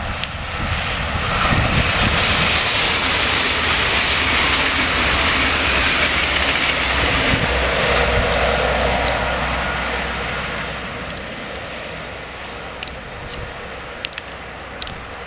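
Passenger train passing at high speed: a loud rush of wheel and air noise with a low rumble, building over the first two seconds, holding steady, then fading away from about ten seconds in.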